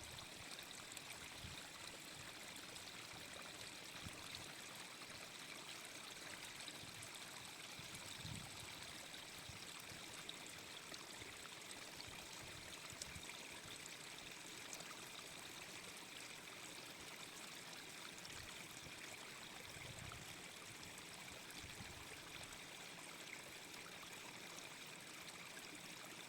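Faint, steady hiss with a few soft low thumps scattered through it.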